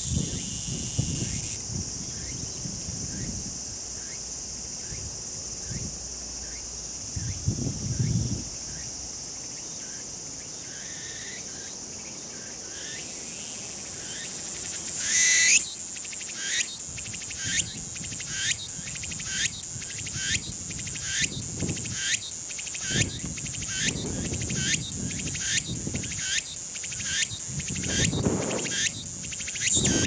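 Meimuna opalifera (tsukutsuku-boshi) cicada song. A high, steady buzzing swells about halfway through into the species' rhythmic repeated phrases, about one and a half a second.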